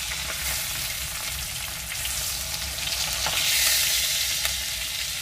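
Salmon pieces sizzling as they fry in a metal pan, swelling louder about three and a half seconds in, with a few light clicks of a metal spoon turning the fish.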